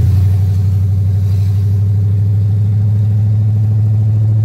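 Pickup truck's engine and exhaust running steadily while driving, heard from inside the cab: a super loud, deep, even drone.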